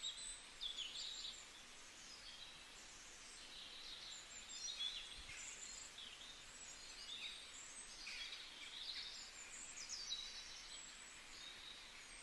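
Morning forest ambience: many small birds chirping and singing at once, short calls overlapping one another over a quiet, steady background hiss.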